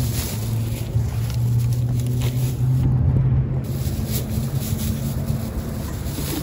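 Metal shopping cart loaded with bagged groceries rolling over concrete pavement: a steady low rumble from the wheels with frequent rattles from the wire basket.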